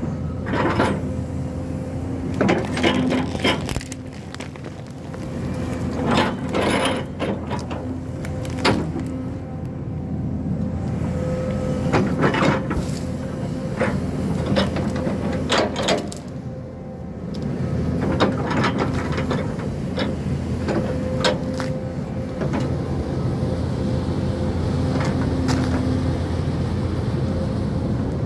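Hyundai crawler excavator's diesel engine running steadily under load, easing off briefly twice, with many sharp cracks and knocks as its forks or grapple work through brush and stumps.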